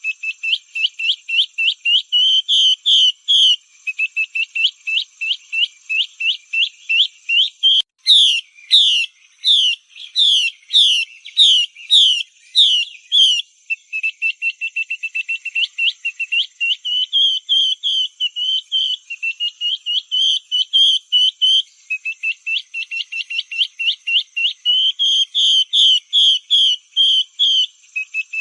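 Female Chinese hwamei (Garrulax canorus) calling in long runs of short, rapid whistled notes, about three or four a second. Between about 8 and 13 seconds in, the notes slow to about two a second and turn into louder, sweeping slurs. This is a lure call of the kind used to draw hwamei in.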